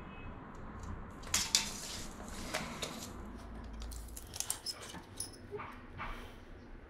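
A series of sharp clicks and light metallic clinks, the loudest about a second and a half in and another cluster near the end, from handling a steel tape measure against a circular saw's metal base plate.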